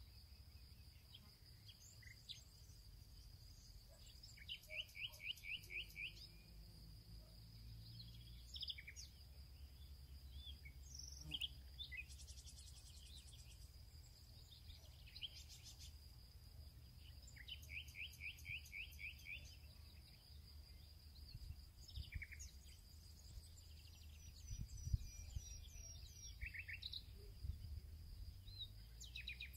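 Faint outdoor ambience with birds calling: scattered short chirps, and twice a quick run of repeated chirps lasting a second or two, over a steady thin high tone and a low rumble.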